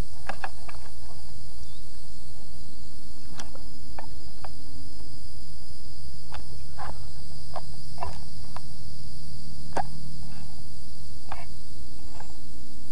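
Steady high-pitched drone of insects in a summer field, with short chirps and clicks scattered through it over a low steady rumble.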